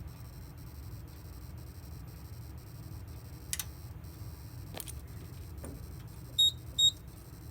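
Two short, high-pitched beeps from a fire alarm control panel near the end, about half a second apart, as the panel is reset. A couple of faint clicks come before them over a low steady hum.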